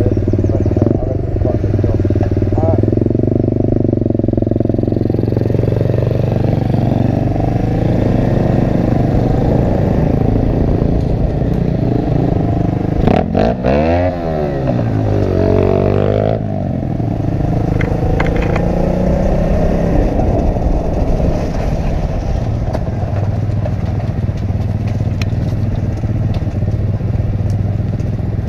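Pit bike engine running steadily while being ridden. About halfway through, the revs drop and then climb back up.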